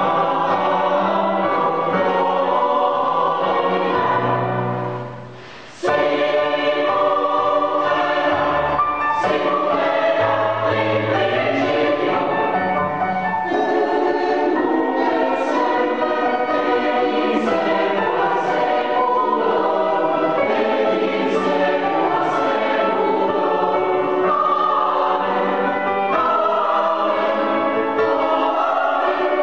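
Mixed choir singing a sustained piece in parts in a resonant church. The sound fades about four seconds in and cuts back in abruptly about two seconds later.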